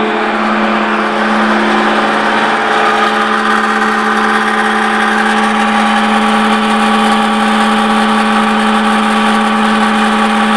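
An elevator hoist machine running steadily with a strong, even hum and higher steady whines, as the lift travels after being called.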